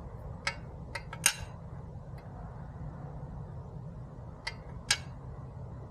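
Small metal parts clinking and tapping as a short-shifter drop plate and its bolts are handled. A cluster of sharp clinks comes from about half a second to a second and a half in, and two more near the end, over a steady low hum.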